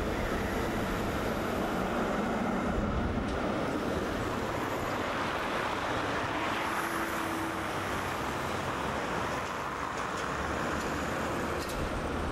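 Articulated electric tram passing close by on street track, its wheels running on the rails, over steady city traffic noise.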